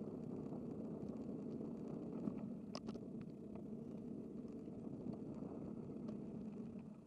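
Steady rushing of wind and road noise on a camera riding along on a moving bicycle, with a few faint clicks and one sharper click about three seconds in. The noise drops away at the very end.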